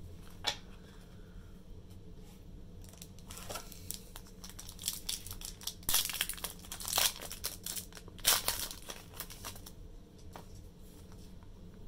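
A foil Pokémon booster pack being torn open and its wrapper crinkled, in a series of short crinkling bursts, loudest about eight seconds in.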